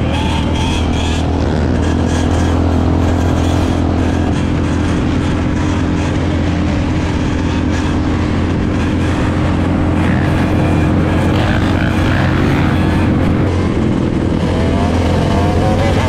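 Dirt bike and ATV engines of a riding group: one engine running steadily close by, with other engines revving up a few times around the middle and again near the end.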